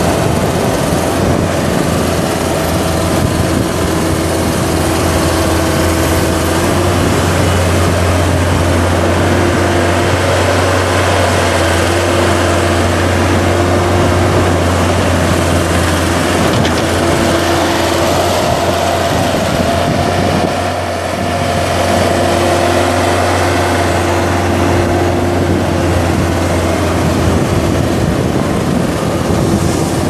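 Case 95XT skid steer's four-cylinder diesel engine running steadily while the machine is driven and its loader arms are worked. The sound dips briefly about two-thirds of the way through.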